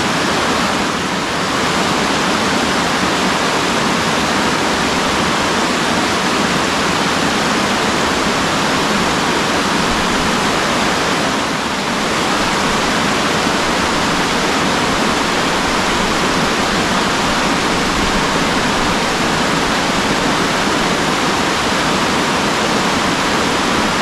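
A waterfall's steady rush of falling water.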